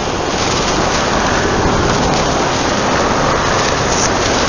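Shortwave receiver static on 3695 kHz, in the 80-metre amateur band: a steady, even hiss of band noise with no clear voice in it.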